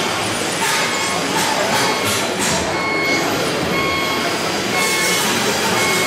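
Reversing alarm of a radio-controlled model construction vehicle's sound module, beeping about once a second from about halfway through, over a steady busy din of model machinery and hall noise.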